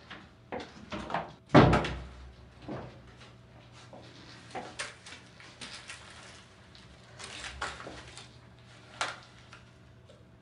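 Bathroom door shut with a thud about a second and a half in, followed by scattered small clicks and rustling as things are handled.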